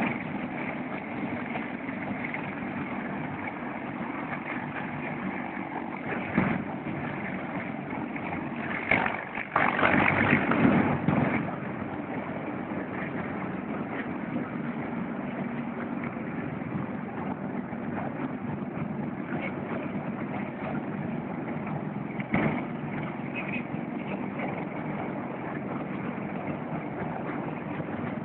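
Steady engine noise, with brief louder surges about six seconds in, from about nine to eleven seconds, and again about twenty-two seconds in.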